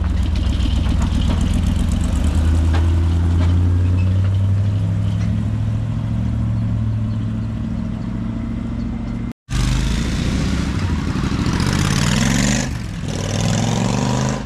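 Vehicle engines driving off. A deep, steady engine note at low revs runs for about nine seconds. After a brief break, an engine revs up with a rising pitch near the end.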